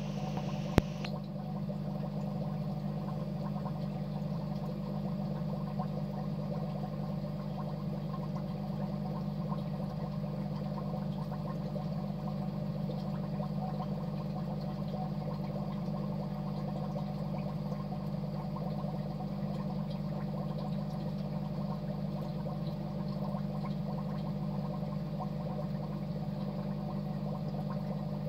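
Aquarium filtration running steadily: a constant low hum with water bubbling and gurgling over it. A single sharp click about a second in.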